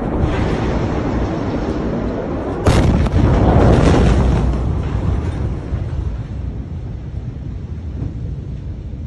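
Blast wave of the Beirut port ammonium nitrate explosion reaching the microphone. A sudden, very loud boom comes about two and a half seconds in, over steady background noise, followed by a heavy low rumble that fades away over the next few seconds.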